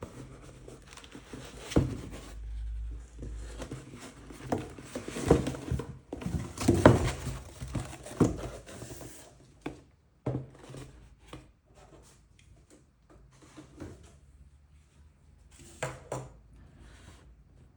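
Packaging being handled and opened by hand: cardboard and wrapping rustling and crinkling, with irregular taps and knocks as the box and its contents are moved. It is busiest in the first half, then thins to a few scattered taps.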